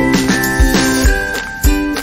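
Background music with a steady beat, about two drum strikes a second, under a melody.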